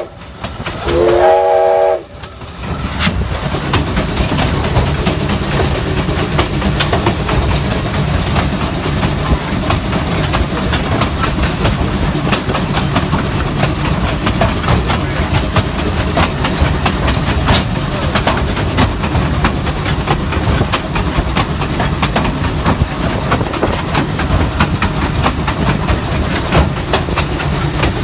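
Steam whistle of Baldwin-built 0-6-0 steam locomotive #3, one short blast about a second in. Then comes the locomotive's steady running noise as it rolls along the track, with many small clicks and a thin, steady high tone over it.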